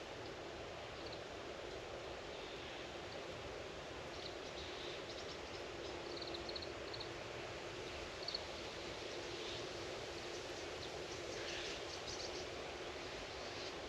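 Rural outdoor ambience: a steady background hiss with short, high bird chirps scattered through it, including a quick run of repeated notes midway.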